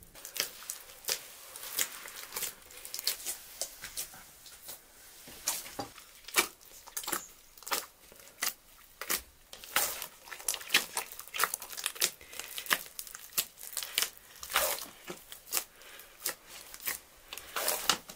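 Hands kneading bread dough in an aluminium pot: the sticky dough is pulled up, torn and pressed back down, making an irregular run of sharp slaps and tearing sounds, several a second.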